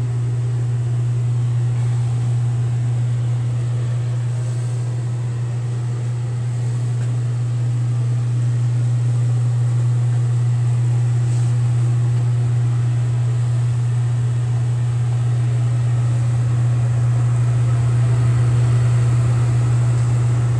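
An electric fan running with a steady low hum.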